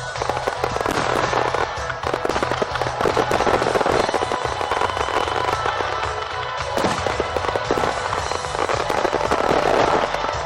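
Fireworks display: a dense, continuous crackling of many small bangs, with music playing underneath.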